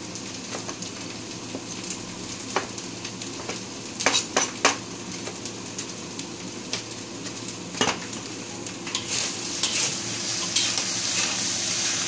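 A few sharp knife taps on a plastic cutting board as a tomato is chopped, three in quick succession about four seconds in. Then, from about nine seconds in, fried rice sizzling in a wok while a metal spatula stirs and scrapes it, over a steady low hum.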